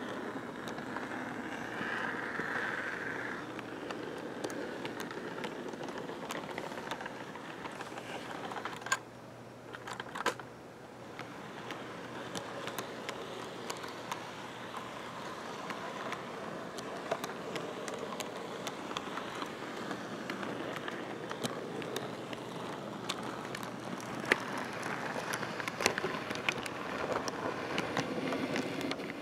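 Model Amtrak bilevel passenger cars rolling past on the track: a steady rolling noise of wheels on rails with frequent sharp clicks as the wheels cross the rail joints.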